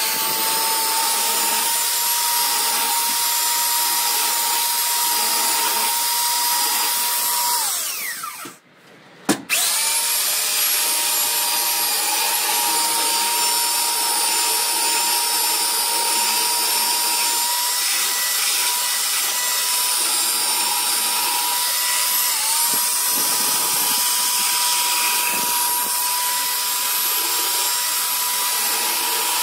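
Electric belt sander, clamped upside down as a bench sander, running with a steady motor whine. About eight seconds in it is switched off and its pitch falls as it winds down. After a second of near silence it is switched back on with a click and runs steadily again.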